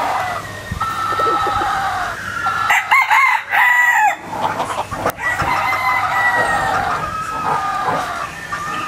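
Roosters crowing: several long, overlapping crows, the loudest about three seconds in.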